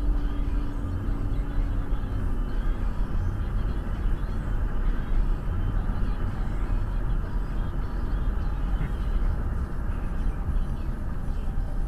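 Steady road and engine noise inside a car cruising on a highway, heaviest in the low rumble. A faint steady hum sits over it for the first two seconds or so.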